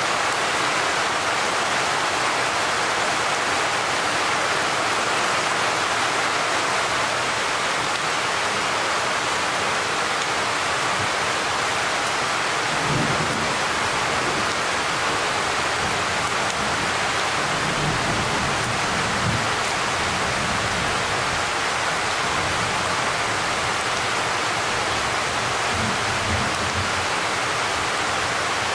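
Steady rain falling in a thunderstorm, an even hiss throughout. Low rolls of thunder rumble under it from about the middle onward.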